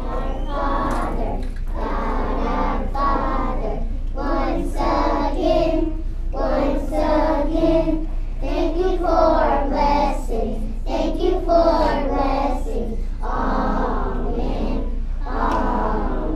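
A group of young children singing a prayer together in unison, phrase by phrase with short breaks between lines.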